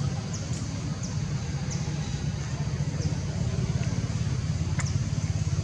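A steady low rumble like a motor vehicle running nearby, with short high chirps scattered through it.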